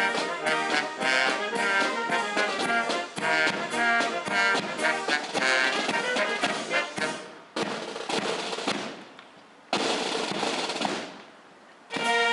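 Military brass band playing a march with trumpets, trombones and drums. The music breaks off about seven seconds in; a sudden wash of noise about ten seconds in fades away, and the band starts up again near the end.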